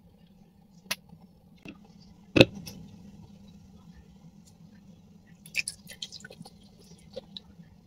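A hand slapping and beating thick rice-flour cucur batter in a stainless steel pot, wet squelches with a loud knock about two and a half seconds in, working air bubbles into the batter. Near the end, water is poured from a plastic measuring jug into the batter, splashing.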